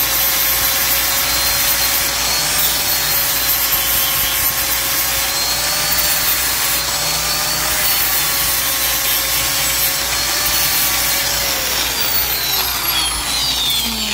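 Angle grinder with a T27 grinding disc grinding down a weld on steel, its motor note wavering slightly under load. About eleven seconds in it is lifted off and switched off, and the disc spins down with a falling whine.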